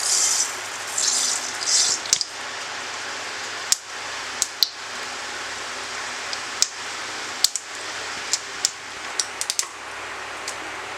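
Mustard seeds spluttering in hot oil in a pan. A high sizzling hiss comes in bursts over the first two seconds, then a steady hiss with sharp, scattered pops, which come closer together near the end.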